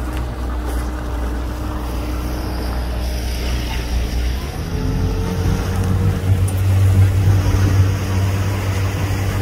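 A boat's motor running steadily with a low drone. About halfway through its note shifts higher and gets a little louder.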